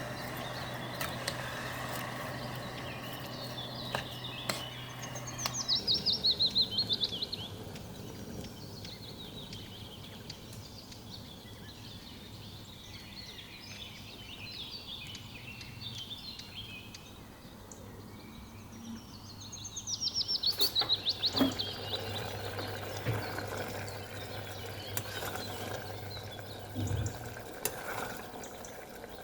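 A songbird sings twice, each time a fast trill falling in pitch lasting about two seconds, over a steady low hum and scattered small clicks and knocks.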